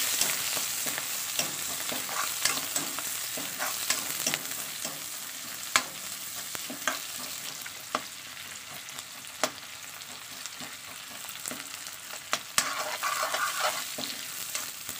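Onion slices and chillies sizzling in hot oil in a metal kadai, stirred with a metal spatula that clinks and scrapes against the pan every second or two.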